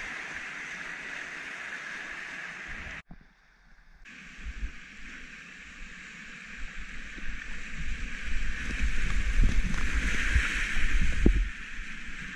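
Whitewater rapid rushing around a kayak, with irregular low splashes and knocks of water against the boat that grow louder from about eight seconds in as it runs the rapid. The sound drops out briefly about three seconds in, then returns.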